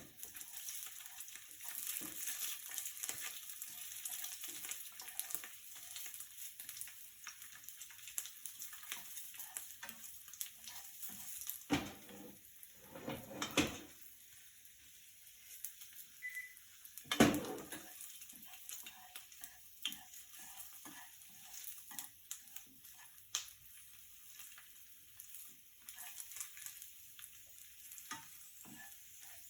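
Food sizzling and crackling in a frying pan as it is stirred, with a few louder knocks against the pan around the middle.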